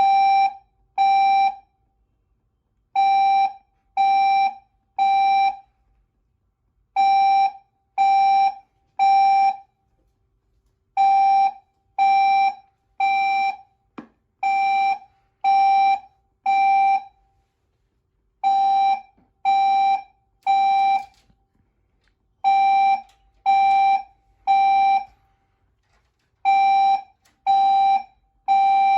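Building fire alarm sounding its temporal-three evacuation signal: three half-second blasts of a steady tone, then a pause, repeating about every four seconds.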